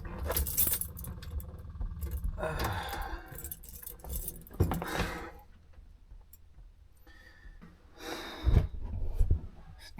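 A key ring jangling and clicking in the ignition switch as the key is turned, with a few light knocks, but no starter cranking and no engine running. The truck fails to start, which the owner puts down to a bad ignition wire connector in the steering column.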